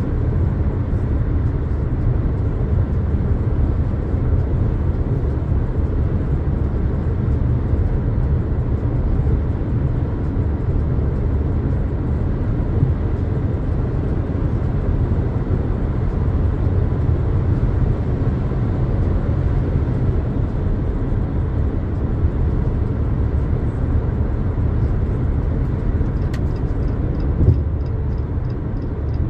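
A 2022 Jeep Compass Latitude being driven, giving a steady low road and engine rumble that holds even throughout. A faint run of small regular ticks comes in near the end.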